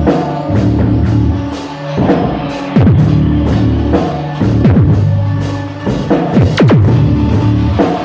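Rock band playing: a drum kit with steady cymbal strokes over a low bass line, and several notes that slide down in pitch.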